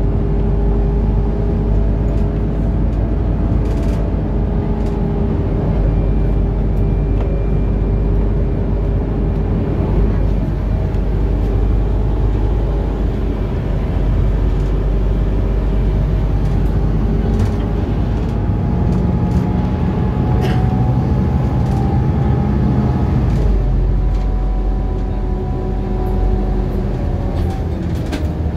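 Ride noise inside a Scania articulated bus on the move: a steady engine and driveline hum over a low rumble, its tones slowly drifting up and down in pitch. A few sharp clicks come through now and then.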